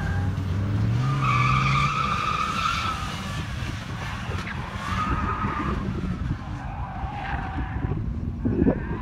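Ford Sierra 2.0 DOHC four-cylinder engine revving hard as the car is thrown through a slalom course, its tyres squealing in several bursts as it turns. A brief thump comes near the end.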